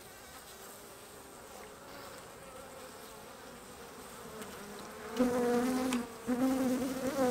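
Honeybees buzzing over an open hive: a faint steady hum, then from about five seconds in a much louder, steady buzz that breaks off briefly near six seconds and starts again.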